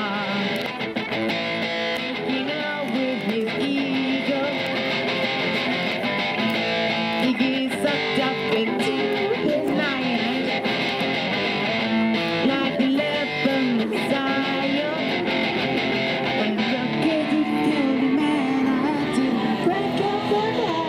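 Electric guitar strummed through a small amplifier, with a singer's voice through a microphone over it: a live busking song.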